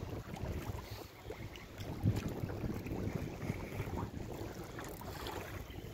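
Wind buffeting the microphone over choppy river water slapping against a small metal boat's hull, with scattered small irregular knocks.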